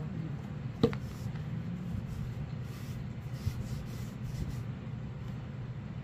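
Hands smoothing and rolling indigo-dyed cloth onto a wooden hongdukkae roller: a soft rubbing and rustling of fabric over a steady low hum, with one sharp knock just under a second in.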